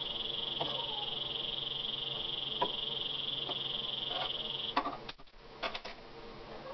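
Several sharp clicks of a handheld spark gas lighter as a gas hob burner is lit, a little before the end. Before them there is a steady high-pitched buzz, which cuts off suddenly just before the clicks.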